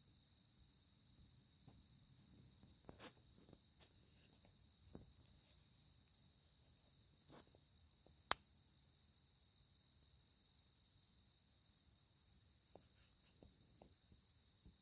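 Steady chorus of insects, such as crickets, holding one continuous high-pitched trill. A few faint rustles and ticks come through it, and one sharp click about eight seconds in.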